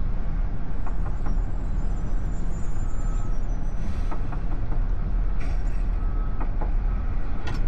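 Steady low road and tyre rumble inside the cabin of a moving AITO M9 on a wet road, with a few faint clicks and short tones.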